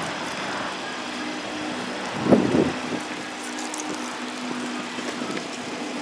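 Steady outdoor background noise with a low, steady hum, and one brief thump about two seconds in.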